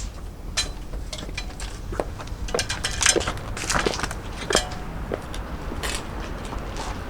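Footsteps in 6-inch silver glitter platform high heels: irregular sharp heel clicks, about one or two a second.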